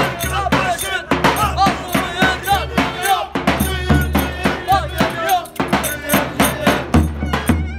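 Loud, lively dance music with a fast, steady drum beat under a melody that bends and ornaments its notes, over a steady deep bass.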